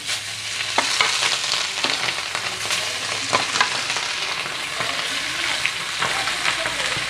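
Small whole hilsa fish, coated in salt and turmeric, sizzling in hot mustard oil in a frying pan as they are laid in one after another. A steady hiss with scattered sharp pops and clicks.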